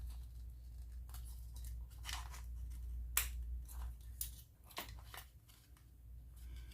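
Rustling and a series of small sharp clicks from a Lishi pick being handled and drawn out of its plastic holder, over a steady low hum.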